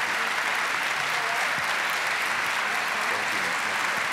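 Large auditorium audience applauding, a dense, steady clapping that holds at the same level throughout.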